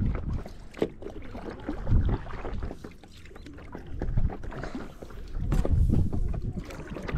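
Water splashing and sloshing around a small floating craft on choppy water, with low rumbling surges every second or two and a few light knocks.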